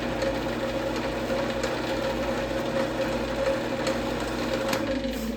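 Wood lathe running at speed with a resin-and-wood bowl spinning in its chuck: a steady motor hum with a whine. It drops away near the end.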